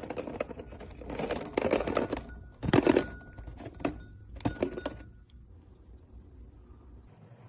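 Slime being squished and kneaded by hand with clay worked into it: a run of crackly, sticky squelching and popping sounds, loudest in the first three seconds, that tails off after about five seconds.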